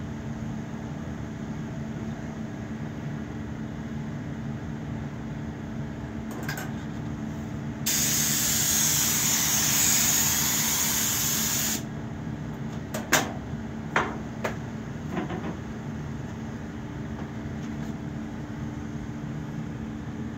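Spray hissing for about four seconds as activator is sprayed onto hydrographic print film floating on a dip tank, over a steady low hum; a few sharp clicks follow soon after.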